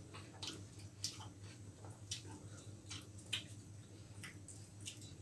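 Quiet eating by hand: irregular wet mouth clicks and chewing, with fingers tearing roti and picking at chilli chicken on the plates, over a low steady hum.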